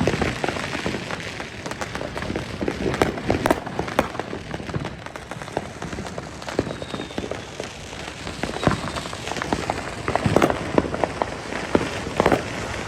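Many irregular clicks and knocks over a steady hiss, with a louder cluster about ten seconds in.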